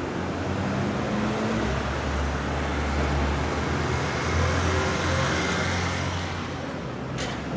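City street traffic: a pickup truck and then a motorcycle drive past, their engine rumble swelling and fading over steady road and tyre noise.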